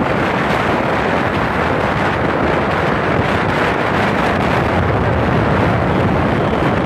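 Strong wind from tropical storm Pabuk buffeting the microphone: a loud, steady rush of noise.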